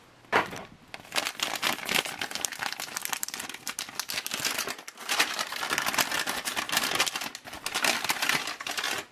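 Crinkling and crackling of an MRE flameless ration heater's plastic sleeve and the foil retort pouch inside it as they are squeezed and handled to get the heated spaghetti pouch out, many rapid crackles with a brief lull about five seconds in.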